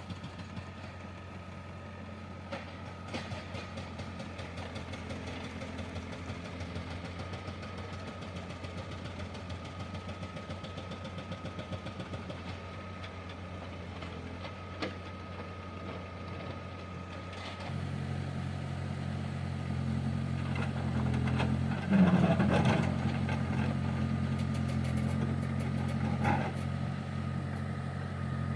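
A heavy machine's diesel engine running steadily. About eighteen seconds in it picks up, louder and fuller, and about four seconds later comes a loud clunk with a few lighter knocks after it.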